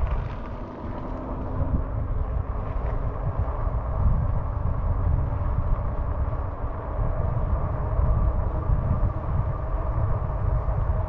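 Riding noise from a RadRover Step-Thru electric fat-tire bike: low wind rumble on the microphone and tyres rolling on the trail, with a faint steady hum.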